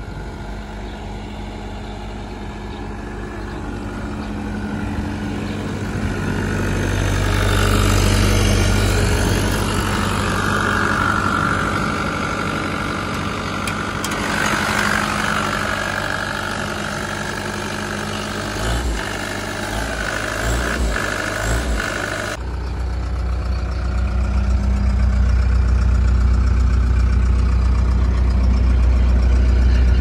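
Caterpillar compact track loader's diesel engine idling steadily. It grows louder and brighter about a quarter of the way in, then changes abruptly about three quarters through to a deeper, heavier hum.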